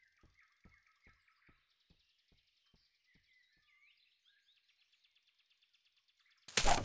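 Faint forest birdsong, chirps and trills, with soft regular ticks about three a second over the first few seconds. Near the end a sudden loud burst of noise lasts about half a second.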